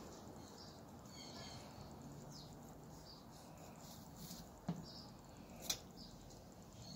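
Quiet knife work on a plastic cutting board, with two sharp clicks about a second apart near the middle as the blade knocks the board. A few faint high chirps sound in the background.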